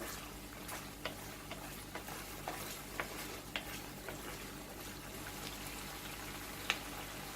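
Chopped onions frying in a lot of melted butter in a frypan: a steady, quiet sizzle with a few short sharp ticks and pops, the clearest near the end.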